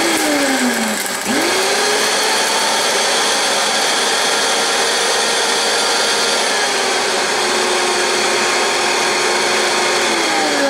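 Vitamix blender motor grinding popped popcorn into flour. Its pitch dips about a second in, then it spins back up and runs steadily before winding down near the end.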